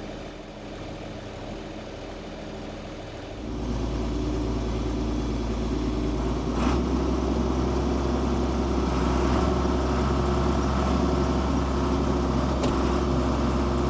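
Compact tractor's engine running, its low hum stepping up louder about three and a half seconds in and again about halfway through as it is throttled up.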